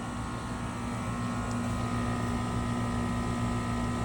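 New Trane 5TTR5 single-stage air-conditioner condenser running steadily, its compressor and condenser fan giving an even hum with a low steady tone over fan rush. It reads around 70 decibels, 10 decibels quieter than the 20-year-old builder-grade unit it replaced.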